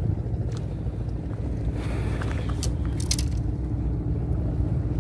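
Steady low outdoor rumble. About two to three seconds in there is a brief rustle and a few short sharp clicks as a small fish is handled and unhooked.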